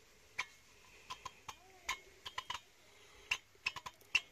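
Sharp, irregular metallic clicks and taps from a Suzuki FZ50 moped piston and its new rings being worked by hand inside the cylinder barrel during a tight dry fit. The clicks come faster near the end.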